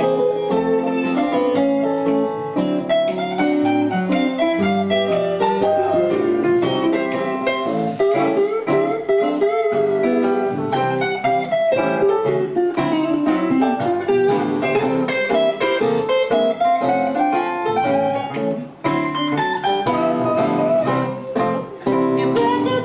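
Live acoustic swing band playing an instrumental break, a guitar carrying a busy melody over strummed acoustic guitar rhythm.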